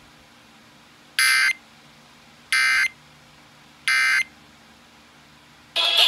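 Three short bursts of Emergency Alert System digital data tones from an alert radio's speaker, about 1.3 seconds apart: the SAME end-of-message code that closes an EAS broadcast. Loud music starts just before the end.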